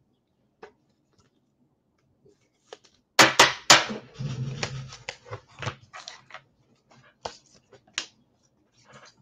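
Handling noise from trading-card packaging: three sharp snaps about three seconds in, then a couple of seconds of crinkling rustle and scattered light clicks.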